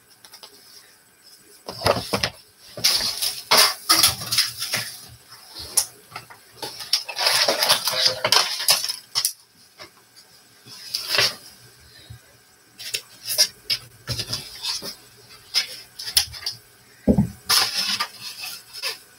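Painting supplies being handled: brushes, tubes and tools clinking and rustling in irregular bursts, with a single dull knock about seventeen seconds in as a caddy of supplies is set down by the easel.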